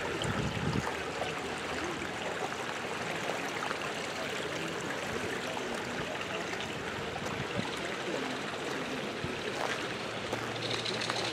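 Steady rush of water flowing through concrete trout raceways. Near the end a low hum and a high steady whine come in.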